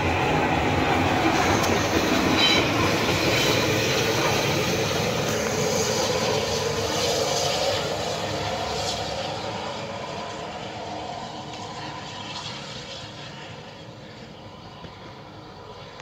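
Bulleid light Pacific steam locomotive 34052 and its train running past close by, the sound fading steadily over the last several seconds as the train moves away.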